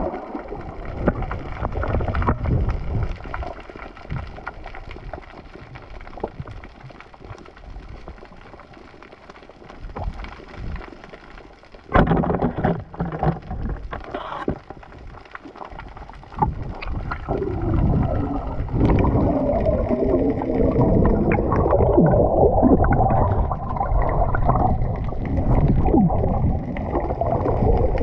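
Muffled underwater water noise picked up through a camera's waterproof housing during a night spearfishing dive, with gurgling bubbles. A sudden knock about twelve seconds in is followed by louder water noise, and wavering gurgles fill the second half.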